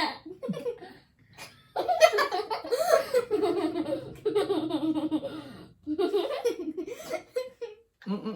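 People laughing and giggling in several bursts with short pauses between them.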